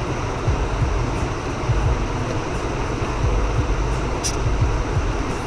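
Great Wall Hover SUV driving, heard from inside the cabin: a steady low engine and road rumble under an even hiss. A single short tick comes about four seconds in.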